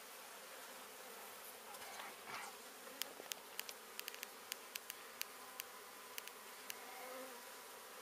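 A mass of honey bees buzzing steadily, with about fifteen sharp ticks between about three and seven seconds in.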